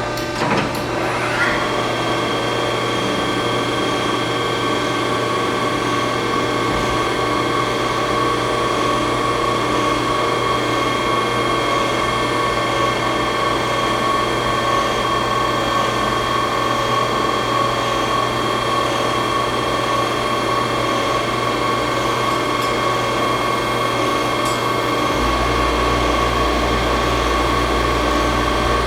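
A 5-axis CNC milling machine running: a steady mechanical whine made of several held tones. There is a sharp click about half a second in, and a low hum joins about 25 seconds in.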